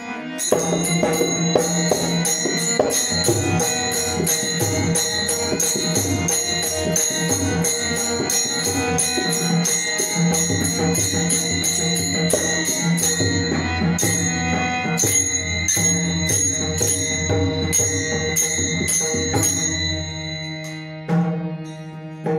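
Background music with a fast, steady beat of percussion and jingles over sustained tones.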